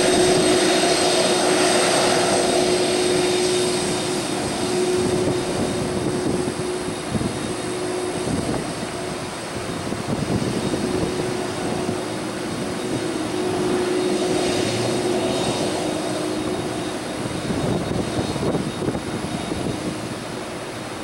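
Jet engines of a UPS McDonnell Douglas MD-11 freighter running as the three-engined jet rolls along the ground: a steady engine rush with a constant hum and a thin high whine.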